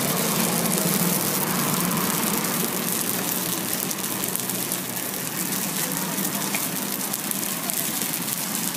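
Sheets of pastry dough sizzling on a hot flat-top griddle: a steady crackling sizzle.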